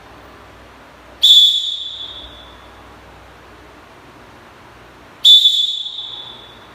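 Referee's whistle blown twice: a short, loud blast about a second in and another about four seconds later. It is the first referee's whistle signal authorising the serve in volleyball.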